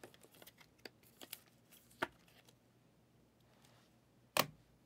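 Trading cards and a foil card-pack wrapper being handled: faint rustling and small clicks, a sharper click about two seconds in, and one loud sharp click near the end.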